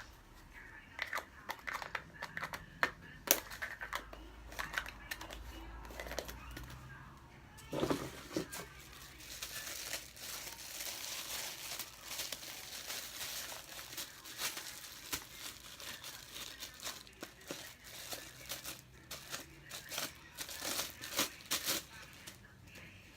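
Slime being squeezed and worked by hand: a run of crackly clicks and pops, thickening into a denser crinkling stretch from about nine to fifteen seconds in.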